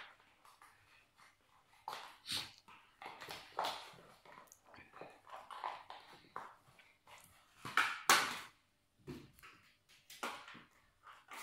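Cat batting a small cardboard cigarette pack across a wooden floor: irregular scuffs, skids and taps from the pack and the cat's paws, the loudest about eight seconds in.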